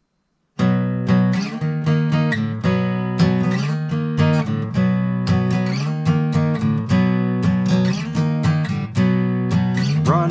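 Acoustic guitar strummed in a steady rhythm, starting abruptly about half a second in: the instrumental intro of a song.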